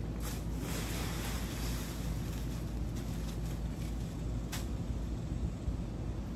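Steady low outdoor rumble with a few faint scrapes and rustles as a plastic leaf rake works through piles of fallen branches and leaves.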